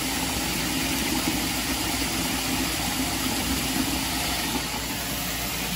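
Reverse-osmosis water purification system running in its rinse cycle after disinfection: a steady mechanical hum and rush of pump and water flowing to the drain, with a faint low tone throughout.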